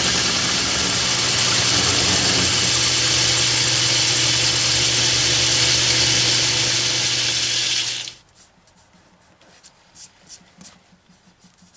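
Metal lathe running a finish facing pass on a cast iron cylinder casting with a carbide insert: a steady motor hum under a bright hissing cut. The lathe stops suddenly about eight seconds in, leaving a few faint light clicks.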